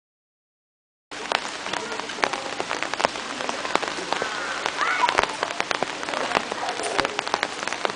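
Steady rain with many sharp, close raindrop taps, starting suddenly about a second in after silence.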